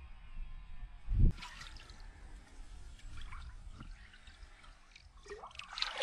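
A big wels catfish moving in shallow water, with splashing, trickling and dripping as it is released and swims off, and a low thump about a second in. The splashing grows busier near the end.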